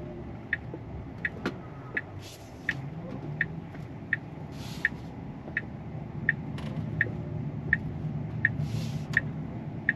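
Tesla Cybertruck's turn-signal indicator ticking steadily, about three ticks every two seconds, over a low steady cabin hum. A few brief soft hisses come in between the ticks.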